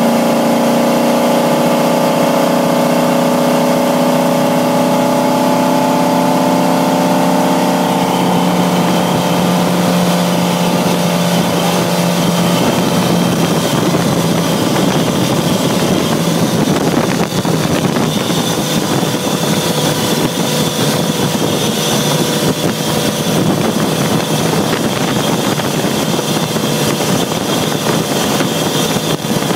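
MerCruiser 350 MAG MPI V8 inboard boat engine at full throttle, heard close in the engine bay. Having just revved up steeply, it holds a steady high engine note that creeps slightly higher for several seconds. After about twelve seconds the note gives way to a rougher, noisier rush.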